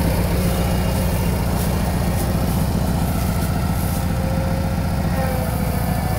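John Deere 400 garden tractor engine running steadily as the tractor drives across the lawn.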